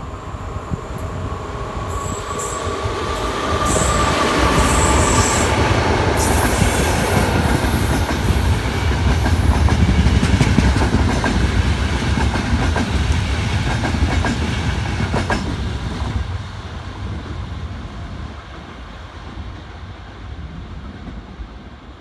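An electric-hauled Intercity passenger train running through a station without stopping. It grows louder as it approaches with a high steady tone over the rumble, runs by loudly with its wheels clattering on the rails for several seconds, then fades away.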